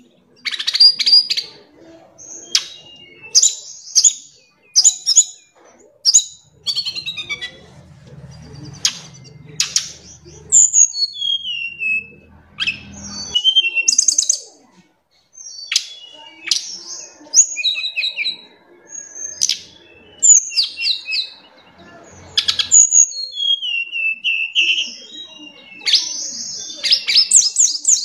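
Caged tledekan gunung, a blue flycatcher, singing a varied song of short whistled phrases, quick rising and falling notes and fast trills, repeated with brief pauses. A dense run of rapid notes comes near the end.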